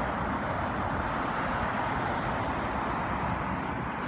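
Steady downtown street traffic noise, with a low uneven rumble on the microphone.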